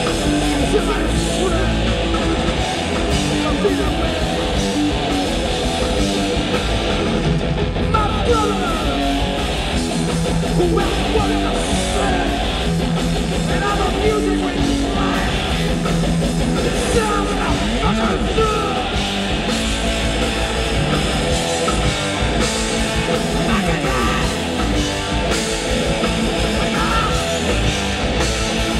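Live rock band playing a loud, driving punk song: heavily distorted electric guitar over bass guitar and drums.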